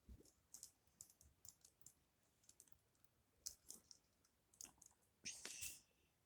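Faint scattered clicks and taps of a small die-cast toy car and its cardboard box being handled, with a longer scraping rustle near the end.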